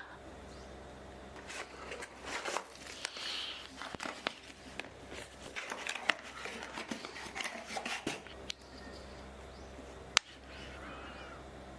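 Packaging and gear being handled during an unboxing: irregular rustling and scraping with scattered clicks, the sharpest about ten seconds in, over a low steady hum.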